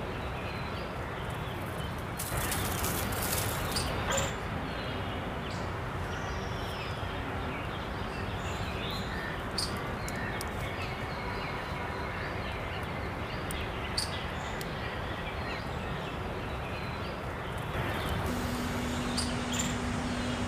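Outdoor ambience: a steady hiss with scattered short bird chirps, and a louder noisy stretch of about two seconds starting about two seconds in. A steady low hum joins near the end.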